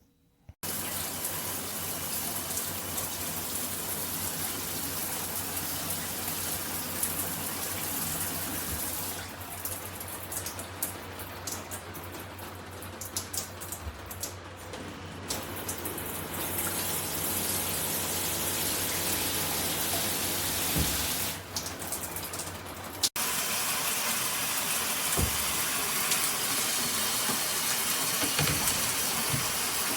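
Water rushing steadily out of a shower head, with its flow-restricting filter removed for fuller flow. The spray runs softer and duller for a few seconds near the middle, and breaks off briefly about two-thirds through before running on.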